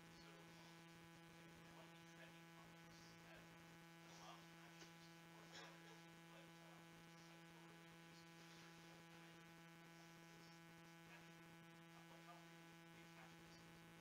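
Near silence under a steady electrical mains hum made of several evenly spaced steady tones. A faint, indistinct voice from across the room, an audience member asking a question off-microphone, comes and goes through it.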